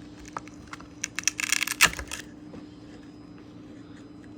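Small plastic parts and packaging being handled: a quick run of sharp clicks and a brief rustling, tearing burst about a second in. A faint steady hum sits under it.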